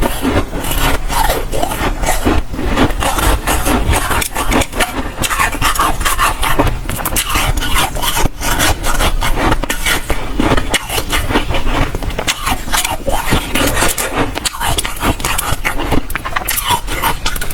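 Close-up crunching and chewing of dry, soft freezer frost ice: a dense, unbroken run of crisp crackles.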